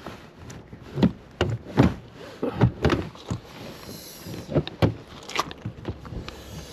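A series of irregular thumps and knocks, about a dozen spread over several seconds, with no steady rhythm.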